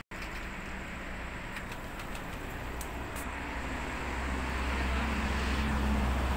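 Street traffic noise, with a motor vehicle's engine hum growing steadily louder from about four seconds in.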